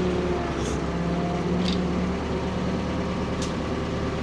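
Ford P-42 excavator's engine running steadily, with three brief faint high squeaks.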